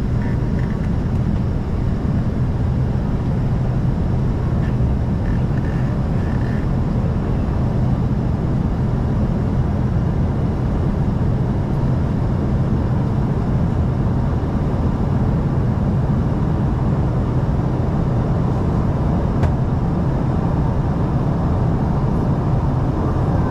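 Steady engine and airflow noise inside the passenger cabin of an Embraer ERJ-145 regional jet, whose two Rolls-Royce AE 3007 turbofans sit at the tail, with a constant low hum underneath.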